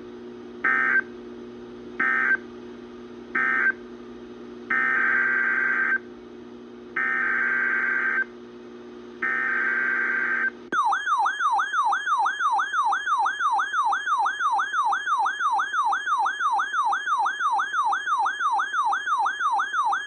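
Emergency Alert System tones. Three short data bursts end the previous message, then three longer data-header bursts announce the next alert. About ten seconds in, a rapid warbling attention tone starts, sweeping up and down about three times a second. A steady low drone sits under the bursts and stops when the warble begins.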